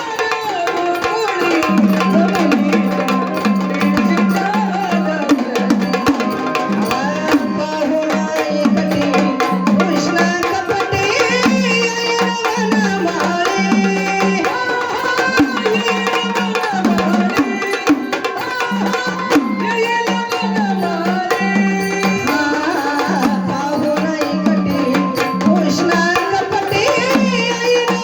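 Marathi gondhal folk music: sambal drums beaten with sticks in a fast, steady rhythm under a keyboard organ melody.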